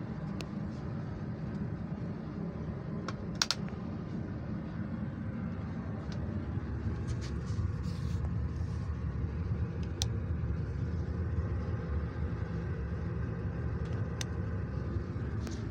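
Steady low rumble of a travelling passenger couchette car (VEB Waggonbau Görlitz build) heard from inside the compartment, a little louder after about seven seconds. A few sharp clicks cut through it, the loudest about three and a half seconds in, fitting switches on the compartment's light panel being pressed.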